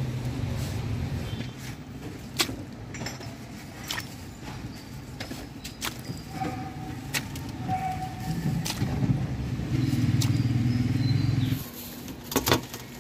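A steady low rumble that stops abruptly near the end. Scattered sharp metal clinks of a ladle and wire strainer against the pot and the steel counter sound through it.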